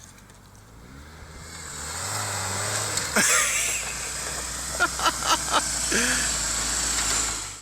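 Off-road SUV engine running and growing louder as the vehicle comes closer on a dirt trail. There is a sharp knock about three seconds in, then a quick run of four or five knocks a couple of seconds later.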